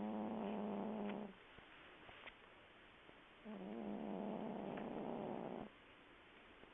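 A sleeping cat snoring, with a low pitched snore on each breath: one ends about a second in, and another starts about halfway and lasts about two seconds.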